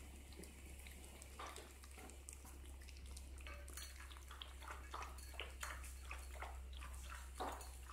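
Several puppies eating raw minced meat from a plate: faint, irregular wet smacking and chewing clicks, coming thicker in the second half.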